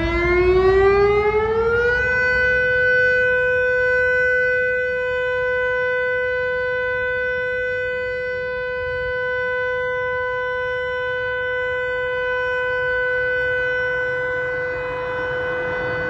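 Federal Signal Modulator 6024 siren sounding the all clear: one steady tone that finishes rising in pitch about two seconds in, then holds level.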